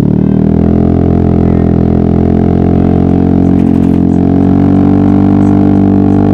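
Yamaha XMAX maxi-scooter's single-cylinder engine running under way, its note climbing slowly as the scooter gathers speed and then holding steady near the end.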